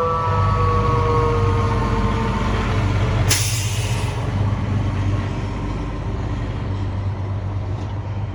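Fire truck siren winding down in pitch and fading out over the first two seconds, over the steady rumble of the truck's diesel engine. About three seconds in comes one loud, short hiss of air brakes.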